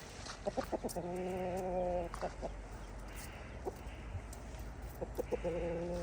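Domestic hen calling: a quick run of short clucks that leads into one long drawn-out note, about a second in and again near the end.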